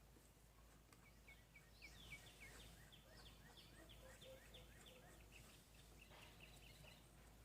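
Faint birdsong: a bird repeating quick, high chirps that slide down in pitch, about four or five a second, pausing briefly and starting again near the end.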